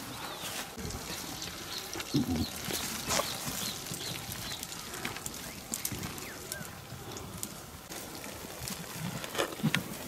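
A penned flock of sheep and goats moving about: hooves and bodies shuffling, with scattered clicks and knocks throughout, and a couple of brief low calls, one about two seconds in and one near the end.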